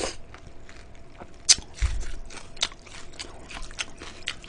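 Eating sounds: chewing and wet mouth clicks as cold noodles and vegetables from a spicy raw-fish soup (mulhoe) are eaten with chopsticks, with scattered sharp clicks and a few brief slurps.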